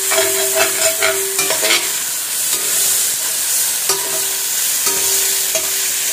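Shredded vegetables sizzling in hot oil in a stainless steel pan while a spoon stirs them, scraping against the pan's metal bottom in repeated strokes, busiest in the first two seconds and again around the fourth and fifth seconds.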